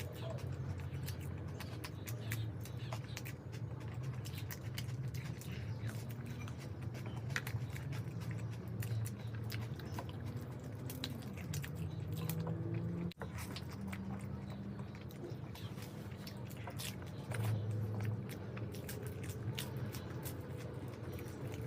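A person eating: chewing and biting with many small wet mouth clicks, over a steady low hum. The sound cuts out for an instant about halfway through.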